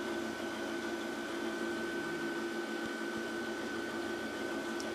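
Steady machine hum with a thin, high, unchanging whine; a faint tick near the end.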